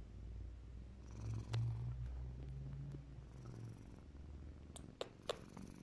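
Lynx point Siamese cat purring steadily close to the microphone, the purr strongest in the first few seconds and easing off after. A couple of short clicks near the end.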